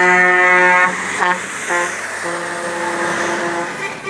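Truck air horn sounding: a long blast that stops about a second in, two short toots, then a second, longer blast that ends near the end.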